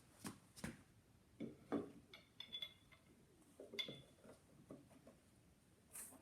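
Scattered light clicks and clinks of small metal parts, the phonograph back bracket and its greased bolts, being handled. Two of the clinks have a brief ringing note.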